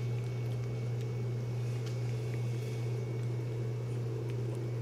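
A steady low hum that does not change, with a few faint clicks over it.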